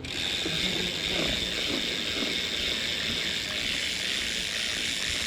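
Mountain bike's rear freehub ratcheting in a steady, fast buzz as the rear wheel spins freely.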